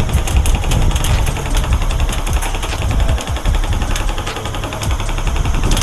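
Airsoft guns firing, many irregular sharp snaps and clicks over a heavy, uneven low rumble on the microphone.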